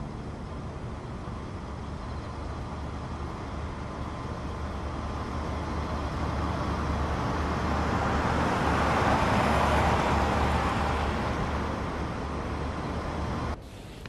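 A car drives up with a steady low engine note and tyre noise, growing louder to a peak about ten seconds in, then easing off before it cuts off suddenly near the end.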